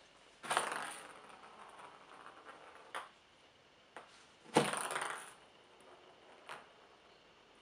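A small ball knocking down onto a wooden board and rolling across it, twice: a sharp knock about half a second in trailing into a rolling rumble, then a louder knock and roll past the middle. Lighter single taps come at about three and four seconds and once more near the end.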